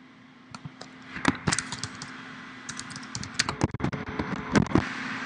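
Typing on a computer keyboard: irregular keystroke clicks in quick clusters, over a faint steady hum.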